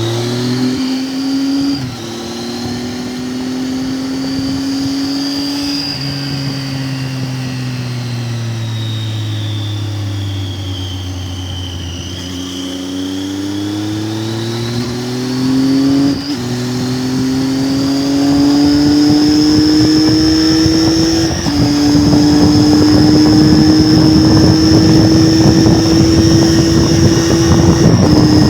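Triumph Tiger 800's three-cylinder engine running under way. Its pitch eases down and then climbs again, broken by short drops at about four gear changes. Wind noise grows over the second half as speed builds.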